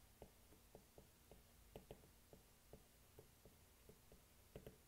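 Near silence with faint, irregular ticks, about three a second: a stylus tapping and stroking on a tablet as handwriting is written.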